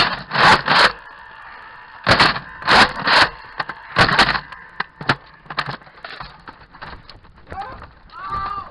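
Nerf blasters firing a rapid string of sharp puffing shots, several in quick pairs over the first four seconds, then softer clicks and snaps. A short shout rises and falls near the end.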